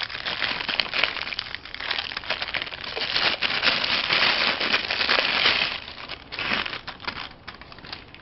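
Plastic packaging crinkling and crackling as it is handled and pulled open, dense for about six seconds, then thinning to scattered crackles.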